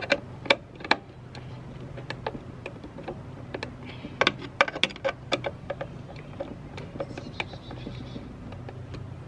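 Hand screwdriver loosening a wood screw in a wooden nest box, with irregular small clicks and scrapes of the metal tip on the screw head, over a steady low hum.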